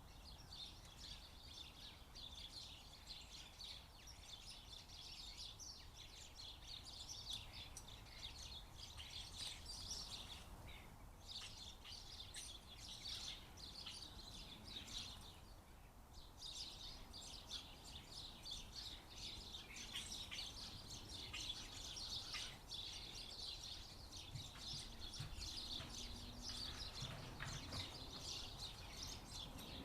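Many small birds chirping in a dense, rapid chatter, with two short lulls, over a steady low background rumble.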